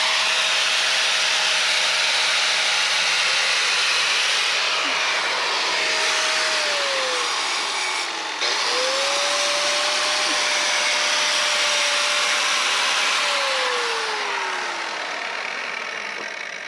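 Angle grinder running with a steady high whine. Its pitch sags slowly as it bogs under load, once about seven seconds in and again from about thirteen seconds on. Around eight seconds in it briefly lets off and spins back up.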